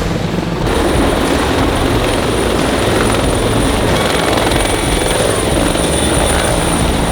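Helicopter running close by: a loud, steady rush of rotor and engine noise with fast chopping underneath. A thin high whine comes in a little under a second in.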